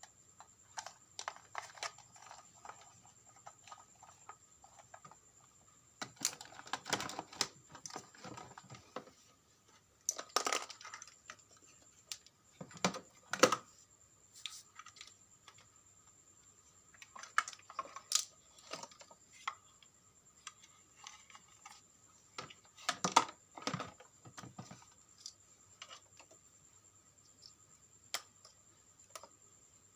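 Small parts being handled during a repair: scattered clicks, taps and rustles in several short bursts, over a faint steady high-pitched tone.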